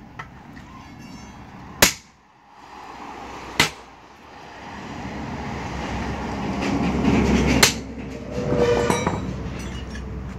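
Steel tools striking a truck wheel's rim and lock ring as the ring is worked off: three sharp metallic clanks a couple of seconds apart. A heavy truck goes by on the road, its rumble rising to a peak around the third clank.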